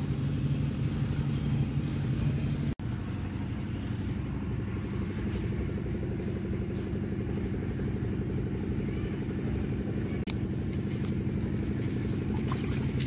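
A steady low engine-like drone, cutting out for an instant about three seconds in, with a few faint clicks near the end.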